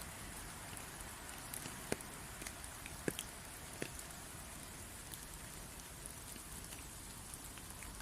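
Steady rain hiss with scattered single drops landing close by, a few louder drips standing out irregularly.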